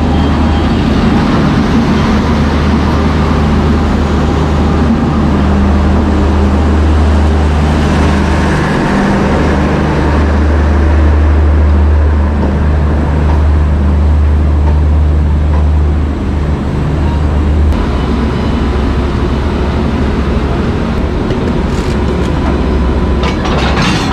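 Standing train's machinery running: a loud, steady low drone with a fainter hum above it. The drone eases somewhat about three-quarters of the way through, and a few sharp clicks come near the end.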